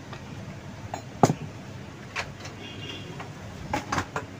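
Sharp metal clicks and knocks as a pipe vise is set and tightened around a motorcycle front fork tube, the loudest about a second in and a few more near the end.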